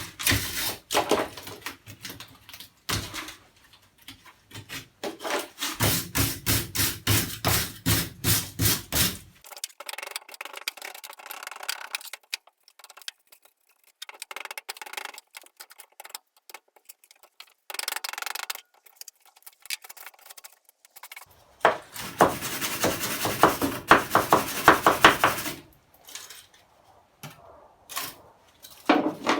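Hand scraping of dry-rotted wood, in runs of quick back-and-forth strokes about three a second, with a quieter, uneven stretch in the middle.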